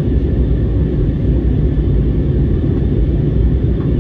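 Steady low rumble of cabin noise inside an Airbus A321neo airliner in flight: engine and airflow noise heard through the fuselage, even and unchanging.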